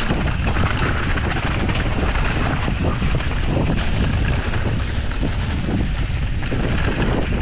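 Wind buffeting the microphone of a mountain biker's point-of-view camera during a fast descent on a dry dirt singletrack, with the tyres rolling over loose dirt and stones and the bike rattling.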